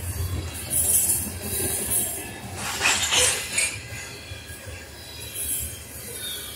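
Covered hopper cars of a freight train rolling past on steel rails: a steady low rumble of wheels on track, with brief high squeals and hisses from the wheels, the loudest burst about three seconds in.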